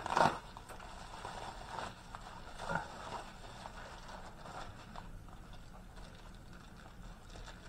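Plastic packing wrap rustling and crinkling as a small package is unwrapped by hand, with a sharp crackle at the start and a couple of louder crinkles about two and three seconds in.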